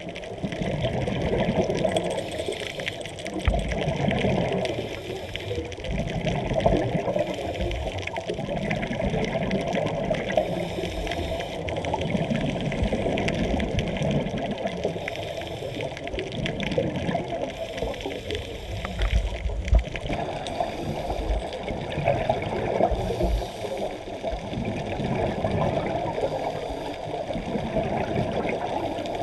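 Muffled underwater water noise of scuba diving: gushing exhaust bubbles from a diver's regulator and water moving past the camera, swelling and ebbing with each breath.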